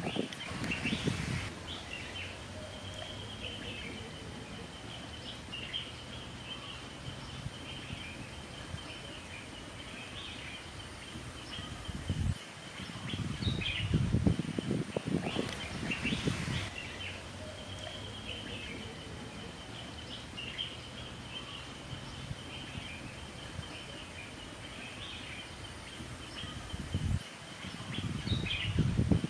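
Birds chirping and calling in short phrases and long broken trills over steady outdoor background noise. Three louder stretches of low, rough noise come near the start, around the middle and near the end.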